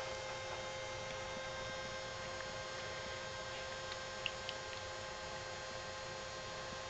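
Steady electrical hum with several fixed tones. A few faint, brief high squeaks about four seconds in, from the week-old Italian Greyhound puppies.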